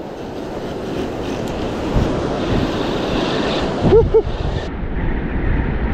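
Surf washing in, with wind buffeting the microphone, building slowly; a short call from a voice about four seconds in.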